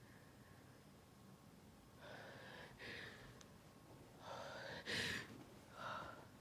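A woman's induced sneeze: a few gasping in-breaths build up, then one sharp sneeze about five seconds in, followed by a short breath out.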